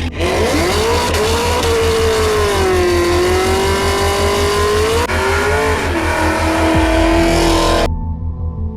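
Race car engine at full throttle down a drag strip, its pitch climbing quickly and then holding high, over background music with a steady bass beat. The engine sound cuts off abruptly near the end.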